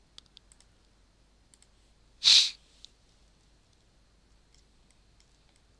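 Several faint computer mouse clicks, and about two seconds in a short sniff, the loudest sound.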